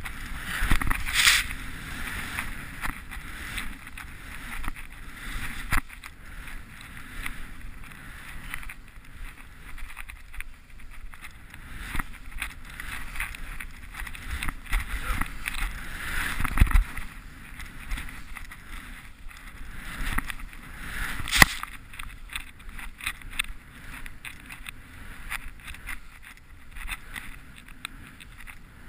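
Skis swishing through deep powder snow in repeated swells, one with each turn, with a few sharp knocks, the loudest about twenty-one seconds in.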